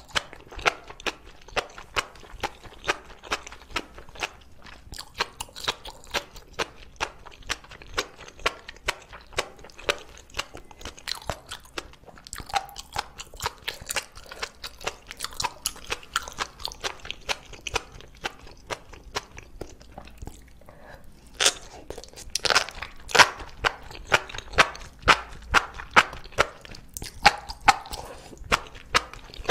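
Close-miked chewing and biting of enoki mushrooms in chili sauce: a steady run of short sharp clicks about two a second, louder from about two-thirds of the way through.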